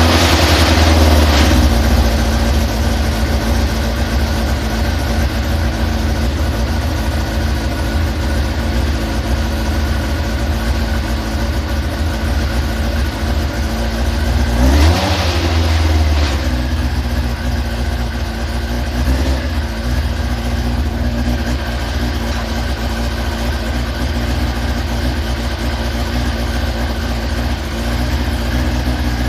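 Carburettor engine that has just started, running steadily while it warms up for carburettor synchronising. About halfway through, one brief blip of the throttle raises the revs, which then settle back.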